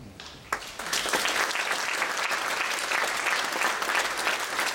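Audience applauding: many hands clapping, starting about half a second in and quickly building to a steady, full round of applause.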